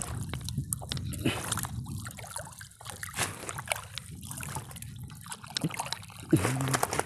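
Wet fishing net being hauled hand over hand out of the water, water trickling and splashing off the mesh with many small drips and sloshes.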